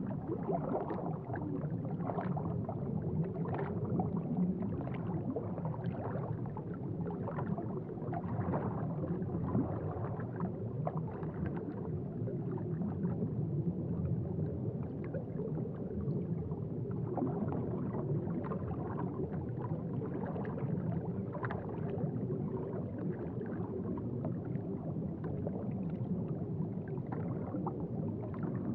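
Aquarium water bubbling and gurgling steadily, a low continuous rumble with many small bubble pops.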